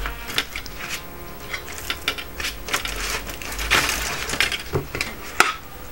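Pork cutlets being handled with a gloved hand in beaten egg in a stainless steel plate: scattered wet handling noises, clicks and light taps of meat and glove against the metal plate, with a sharper tap about five and a half seconds in.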